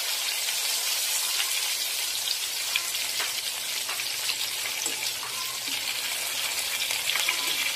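Whole stuffed chicken frying in hot oil in a wok on full flame: a steady sizzle with fine crackling, and a few light clicks of a wire spider strainer and spatula against the pan.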